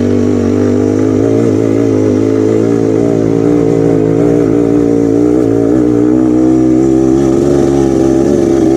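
Motorcycle engine running steadily under way at moderate revs, its pitch wavering slightly.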